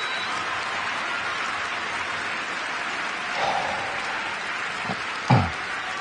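Steady murmur of an arena crowd during a table tennis point. Near the end come a light click and then a single sharp thump, the loudest sound, as play gets under way.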